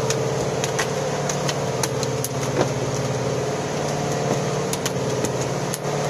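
A fishing boat's engine running steadily, with scattered sharp knocks and slaps as a freshly landed mahi-mahi thrashes on the wet deck.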